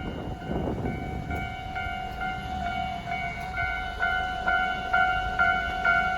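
Japanese level-crossing warning bell ringing about twice a second and growing louder, heard from inside a Tobu Isesaki Line train as it approaches the crossing, over the low rumble of the train running.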